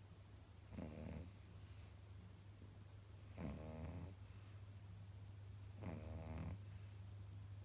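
French bulldog puppy snoring in its sleep: three rattling snores about two and a half seconds apart, over a steady low hum.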